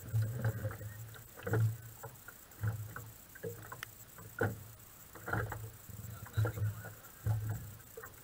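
Small waves lapping and slapping against the hull of a tunnel-hull raceboat sitting idle in the water, in irregular low knocks about once a second.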